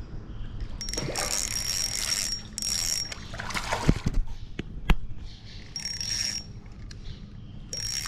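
Fishing reel being cranked in short spells as a hooked fish is reeled in: a whirring, ratcheting crank with a thin high whine, starting and stopping several times. Two sharp knocks come near the middle.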